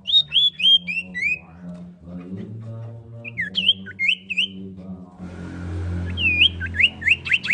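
Common iora calling in short, loud whistled notes: a quick run of five falling notes at the start, a few hooked notes in the middle, and a fast series of rising notes near the end. A low human voice, like chanting, runs underneath.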